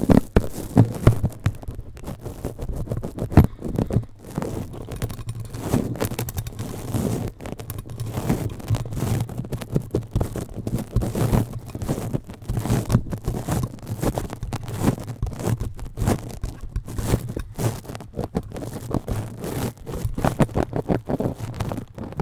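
Rubbing and scratching directly on a microphone, a continuous run of close, crackly strokes with a low boom underneath.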